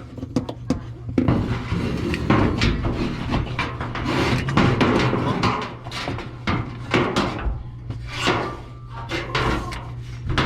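Irregular scraping, rubbing and clicking of a washing machine suspension rod and the washer's parts being worked by hand as the rod is pushed into its mounting, over a steady low hum.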